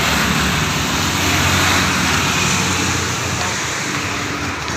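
Steady road traffic noise from passing vehicles, with a low engine hum underneath.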